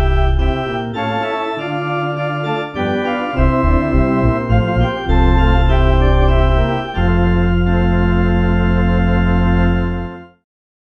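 Electronic organ playing the closing bars of a hymn: sustained chords over a deep bass, changing every second or two, then a final chord held for about three seconds that stops about ten seconds in.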